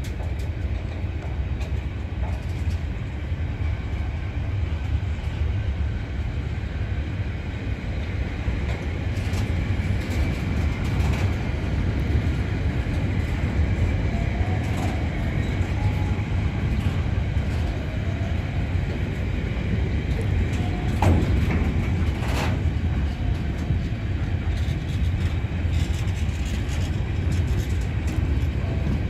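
Freight train of box wagons rolling past, a steady rumble of steel wheels on rail. There are a couple of sharp knocks about two-thirds of the way through.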